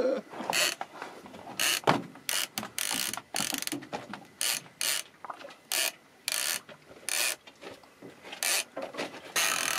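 Multiplier fishing reel's drag giving out line in short, irregular bursts as a hooked common skate runs and pulls line off against it.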